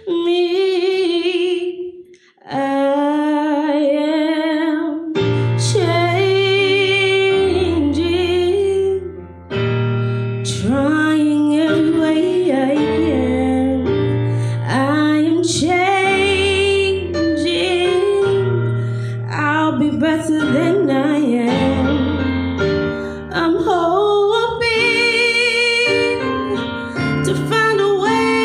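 A woman singing a slow soul ballad live into a microphone, holding long notes with vibrato. She sings alone at first; about five seconds in, sustained keyboard chords with low bass notes come in underneath her.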